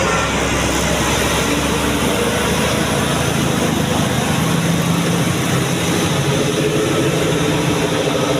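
Tour bus diesel engine running loudly at close range, with steady street and traffic noise.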